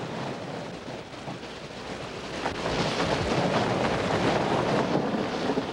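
Strong blizzard wind blowing and buffeting the microphone, a steady rushing noise that grows louder about two and a half seconds in.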